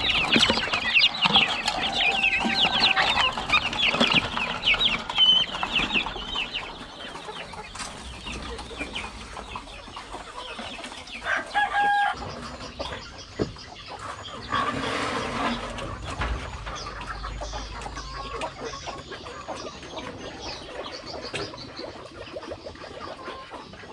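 A flock of village chickens clucking and calling, busiest during the first several seconds and sparser after that. A single longer, held call comes a little before halfway.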